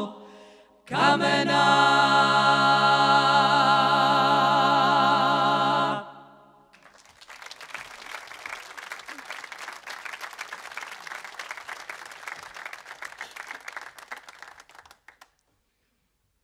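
Women's a cappella klapa ensemble holding the final chord of the song for about five seconds, sung steady without vibrato-like wavering. Then the audience applauds for about eight seconds until the clapping dies away.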